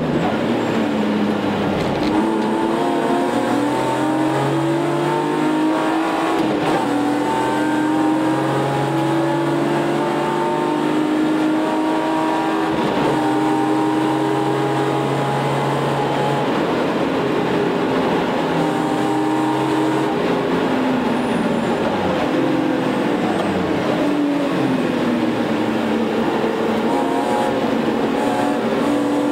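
Car engine heard from inside the cabin at racing speed, revving up through the gears: its pitch climbs and drops back at each upshift, then falls away as the car slows for a corner before climbing again.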